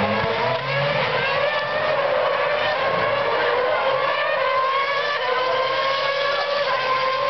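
Racing car engines running at high revs along the circuit, several at once, their pitches slowly rising and falling and overlapping.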